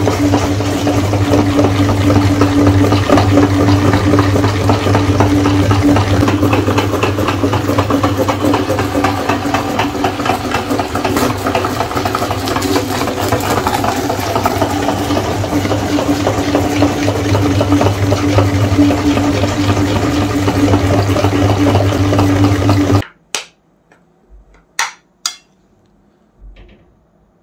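Meat grinder running with a steady motor hum as its auger churns ice cream through the plate, then cutting off suddenly about 23 seconds in. A few sharp clicks of a metal spoon against the grinder plate and dish follow.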